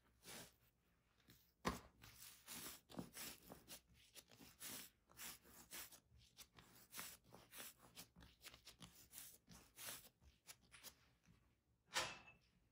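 Hands pressing and rolling soft brioche dough into a log on a granite countertop: quiet, quick rubbing and patting, with a sharper thump about two seconds in and another near the end.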